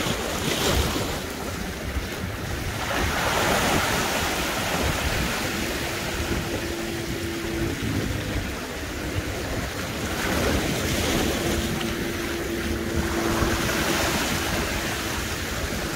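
Sea waves surging and washing against shoreline rocks, swelling every few seconds, with wind buffeting the microphone.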